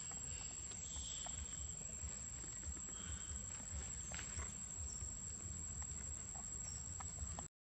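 Quiet outdoor ambience: a steady high-pitched whine over a low hum, with a few faint scattered clicks. It cuts off abruptly near the end.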